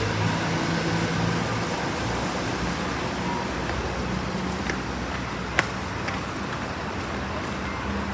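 A large vehicle's motor humming steadily over a background hiss, easing a little, with a single sharp click about five and a half seconds in.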